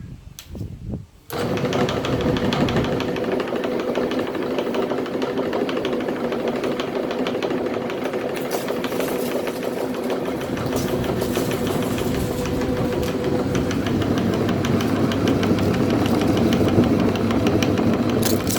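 Electric meat grinder switching on about a second in and running steadily, its motor humming with a fast, even rattle.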